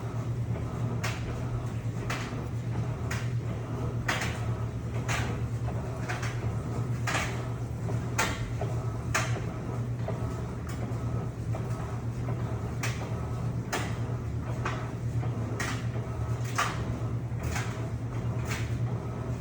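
Electrolux LPE16 top-loading washing machine agitating a duvet load. A steady motor hum runs under a swish of water and fabric that comes about once a second.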